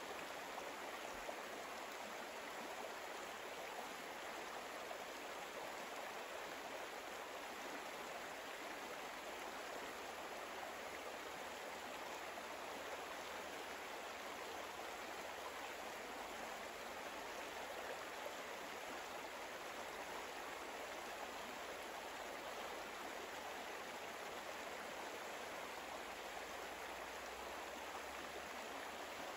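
Soft, steady rush of flowing stream water, even and unbroken, with no rhythm or change.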